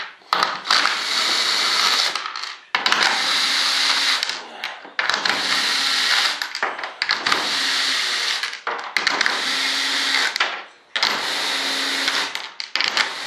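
Cordless drill/driver turning the screws along the edge of a panel. It runs in about six bursts of a second and a half to two seconds each, with short pauses between them as it moves from screw to screw.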